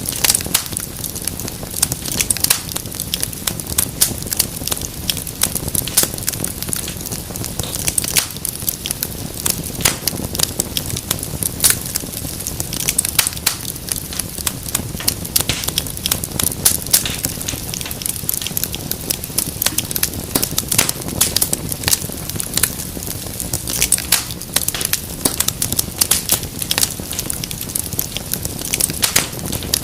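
Wood fire burning in a fireplace, crackling and popping in dense, irregular snaps over a low steady rumble of the flames.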